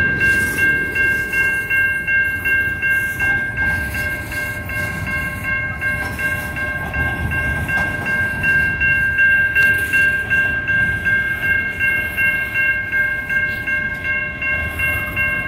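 Type 3 Safetran electronic crossing bell ringing in steady, even strokes, over the low rumble of coal hopper cars rolling slowly through the crossing.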